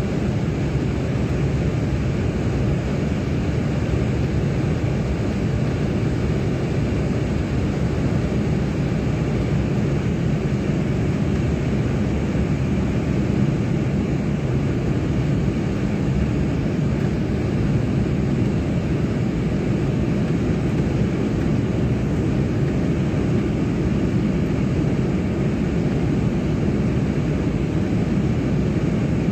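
Steady engine and airflow noise inside the cabin of a twin-engine regional jet climbing after takeoff, deep and even throughout.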